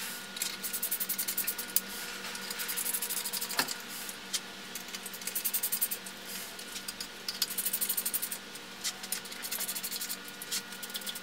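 Ratchet wrench clicking in short rapid runs with pauses between them as casing bolts are driven into a centrifugal pump's volute, with a single metallic knock about three and a half seconds in.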